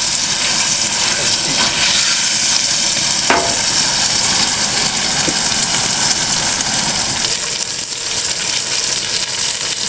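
Burger patties sizzling as they fry in a small Fire Maple camp pan, a steady hiss, with one short click about three seconds in.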